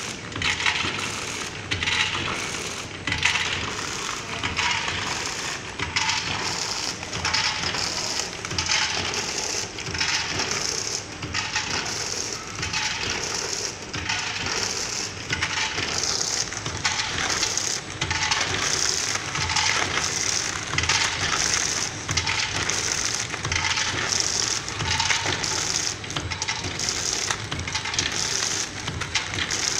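Vertical form-fill-seal packaging machine with a four-cup volumetric filler running continuously on snack nuts. Hard nuts rattle and clatter in the filler bowl and drop through the machine in a steady, regular cycle.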